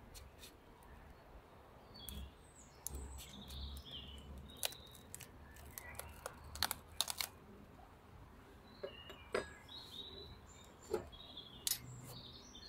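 Scattered sharp clicks and small cracks as a metal hive tool prises apart polystyrene Mini Plus hive boxes stuck together, with birds chirping a few times in the background.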